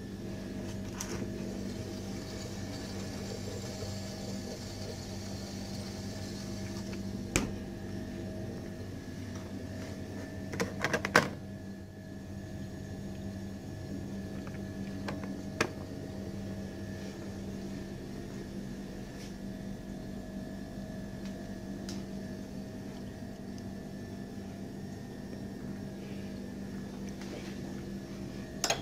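Steady electrical hum of buffet refrigeration and serving appliances, with a few sharp clinks of tableware; the loudest is a quick clatter about eleven seconds in.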